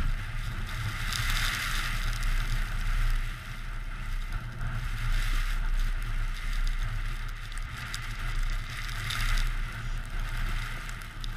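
Wind buffeting the camera's microphone: a steady low rumble with a hiss above it, swelling and easing in gusts.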